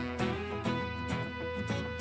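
Background music with plucked guitar notes over a steady beat.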